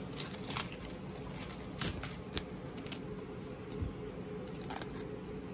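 Wrapper of an Upper Deck hockey card pack being handled and torn open: a few short crinkles and clicks, spread out over a few seconds, over a faint steady hum.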